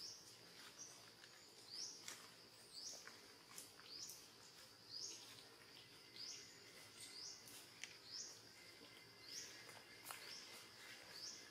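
Faint forest ambience: a steady high insect drone, with a short high rising chirp repeated about once a second, and a few faint clicks.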